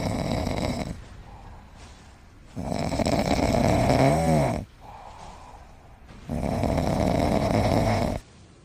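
Snoring in slow, regular breaths: three long snores about three and a half seconds apart, with quiet gaps between them. The middle snore carries a brief pitched tone.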